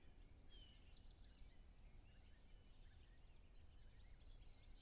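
Faint birdsong: several small birds chirping and trilling in quick short notes, over a low, steady outdoor rumble.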